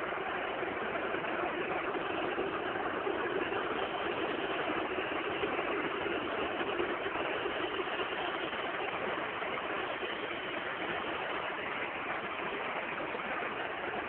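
Football stadium crowd, a steady din of many voices with a slight swell in the middle.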